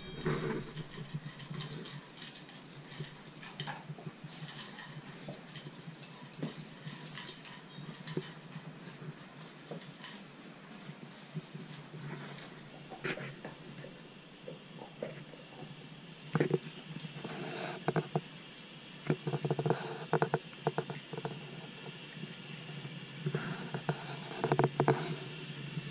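A dog eating from a bowl: scattered small clicks and crunches of chewing and of the bowl, in busier bursts during the second half.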